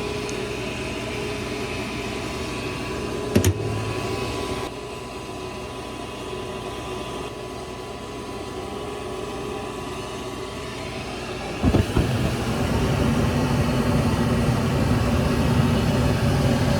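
Goodman gas furnace going through its startup: the induced-draft (inducer) motor runs steadily, a click comes about three seconds in, and about twelve seconds in the burners light with a thump, followed by a steady, louder low rumble of burning gas.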